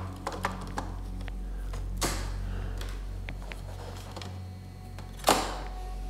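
Wire cutters snipping off the ends of nylon zip ties: a quick run of small clicks at the start, then two sharp snaps, one about two seconds in and a louder one near the end.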